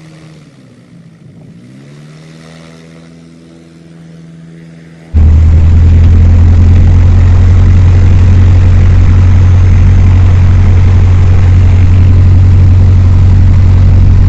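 Cessna 152's four-cylinder Lycoming engine and propeller running as the aircraft taxis, first heard from outside with its pitch dipping and recovering about a second in. About five seconds in the sound jumps to a very loud, steady engine-and-propeller drone as heard inside the small cabin, which cuts off suddenly at the end.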